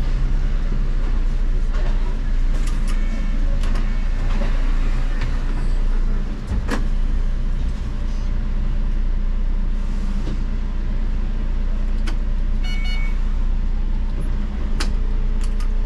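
IMC Hess Lightram 19 DC trolleybus standing still, heard from the driver's cab: a steady low hum of its running equipment, with a few sharp clicks. A short electronic beeping sounds near the end.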